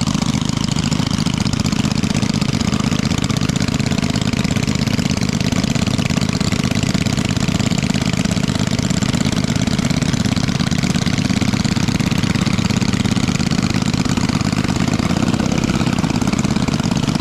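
Small engine running at a steady speed, with a rapid even firing pulse and no change in pace.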